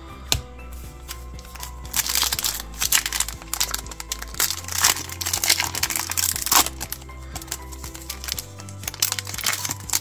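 Foil wrapper of an Upper Deck Blizzard Legacy Collection trading-card pack crinkling and tearing as it is opened by hand, in rustling spells of about a second each. Steady background music runs under it.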